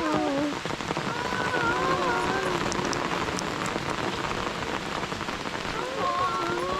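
Steady rain falling, an even patter throughout, with a voice singing a few held notes about a second in and again near the end.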